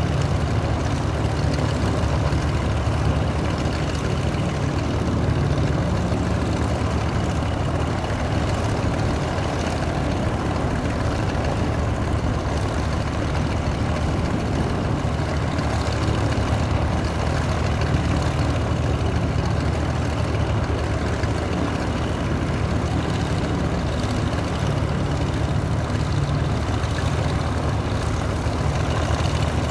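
Reims Cessna F337G Skymaster's twin piston engines, one pulling at the nose and one pushing at the tail, running steadily at low power with a deep, even drone.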